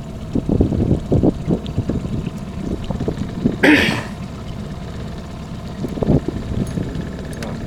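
A single short cough a little under four seconds in, over a steady low rumble with irregular low knocks, typical of wind and boat movement on an action-camera microphone.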